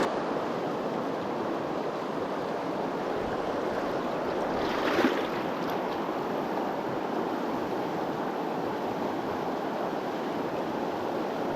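River water rushing steadily, an even wash of noise, with a brief louder swish about five seconds in.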